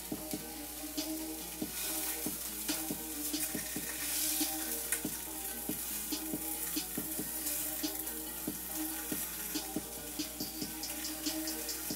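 Food sizzling in a frying pan on an electric stove while a utensil stirs it, with frequent sharp clicks and scrapes of the utensil against the pan.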